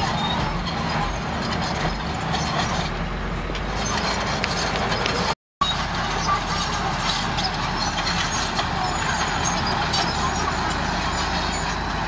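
Komatsu D31A crawler bulldozer's diesel engine running steadily under load as it pushes rock fill, with scattered light clicks and knocks. The sound cuts out completely for a moment about five and a half seconds in, then carries on as before.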